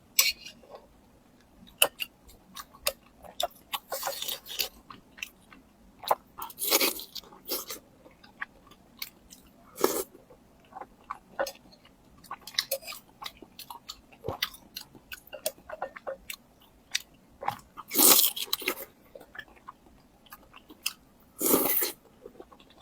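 Close-up eating sounds: chewing and biting food, with many irregular small mouth clicks and a few louder bursts lasting under a second each.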